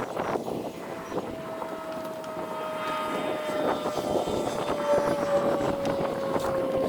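An engine passing by, growing louder, its steady hum slowly falling in pitch.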